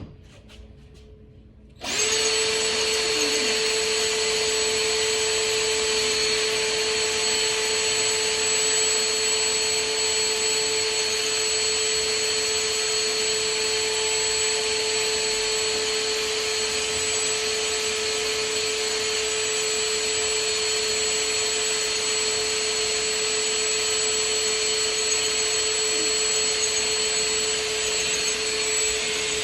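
A steady electric motor whine that starts about two seconds in and runs on at an unchanging pitch.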